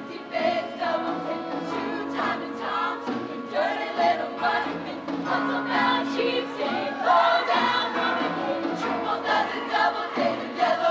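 High school show choir singing a fast number in full voice, many voices together over instrumental backing with a moving bass line.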